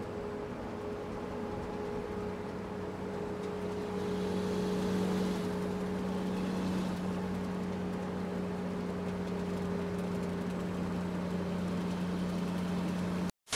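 Steady low hum of an idling vehicle engine, with an even background hiss.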